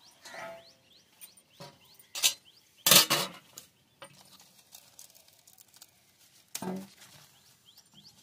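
Metallic clinks and knocks of a stainless steel tray as picked guavas are set on it. There are a few sharp hits, the loudest about three seconds in and another near seven seconds.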